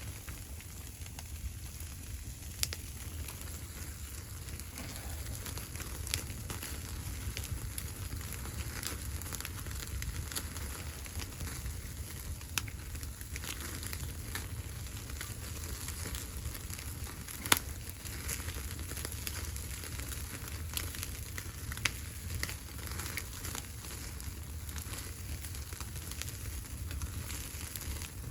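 Wood fire crackling, with irregular sharp pops over a steady low rumble; one pop about two-thirds of the way through is louder than the rest.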